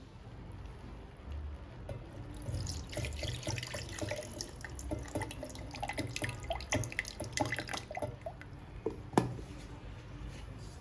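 Water splashing irregularly in a kitchen sink from about two seconds in, as when something is rinsed under the tap, with one sharp knock near the end.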